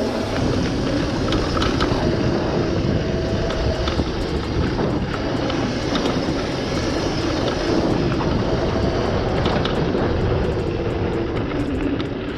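Razor MX500 electric dirt bike, overvolted to 48 V, being ridden: its motor and chain drive whine, the pitch wavering up and down with speed, over a heavy low rumble.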